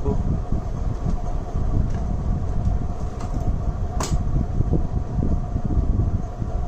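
Steady low rumbling background noise with a faint hum, like a fan or air conditioner, and one sharp click about four seconds in.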